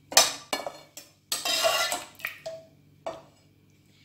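Metal ladle clinking and scraping against a cooking pot and a serving plate as sauce is scooped and spooned out: several sharp clinks, with one longer scrape about a second and a half in.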